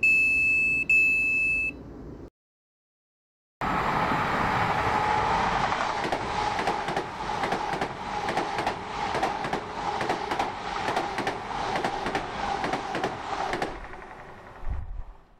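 Two high electronic beeps, then after a short silence a steady vehicle noise with a droning tone and regular clicks, which fades out near the end.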